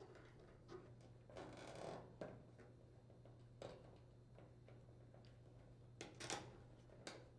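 Faint, scattered clicks and a brief rustle over a low room hum: a screwdriver and power-cord wire terminals being worked at an electric dryer's terminal block.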